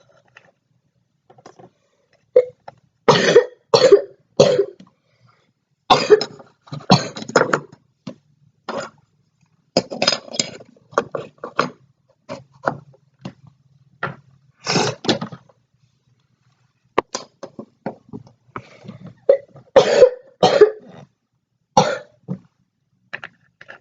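A person who is sick coughing over and over, in short coughs that often come in quick runs of two or three, with pauses of a few seconds between the fits.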